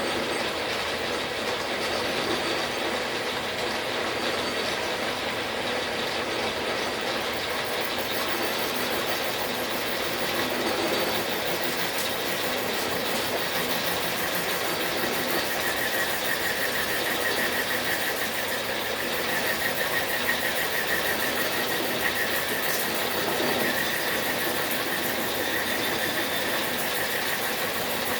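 Machine tool running while a cutter takes one of the final tooth cuts in a small thread-dial gear blank held in a dividing head. A steady mechanical clatter with a squeal, joined about halfway through by a steady high whine.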